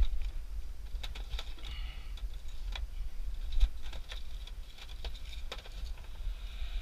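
Scattered light clicks and taps from handling items at a snack vending machine, with a sharper click at the start and brief rustling in between.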